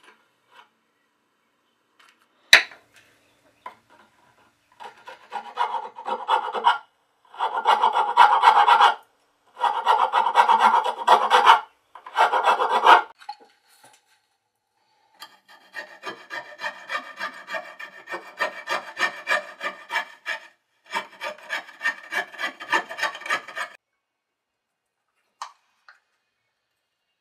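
Hand tool scraping across wood: several long passes, then runs of quick back-and-forth strokes, about three a second, with a single sharp knock just before the work starts.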